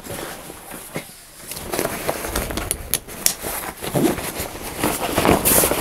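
Rustling of a 1000-denier Cordura nylon canoe pack as its straps and buckles are handled, with a few sharp clicks of plastic buckles or strap hardware.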